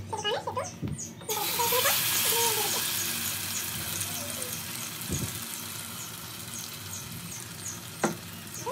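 Hot oil in a kadai sizzling as a thick tomato-onion paste is poured in. The hiss starts suddenly about a second in, then slowly dies down as the paste settles in the oil.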